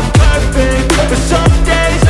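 Electronic music with a heavy beat, deep bass notes sliding down in pitch and held synth chords.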